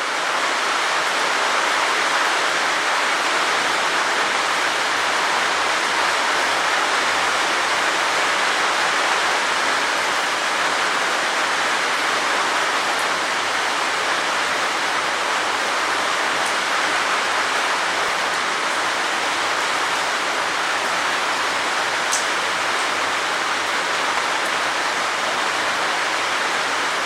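Heavy monsoon rain falling steadily, an even, unbroken hiss.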